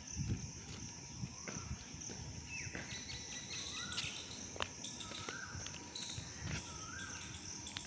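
Insects keep up a steady high drone while a bird repeats a short rising call several times in the second half. Soft footsteps on stone paving fall about once a second.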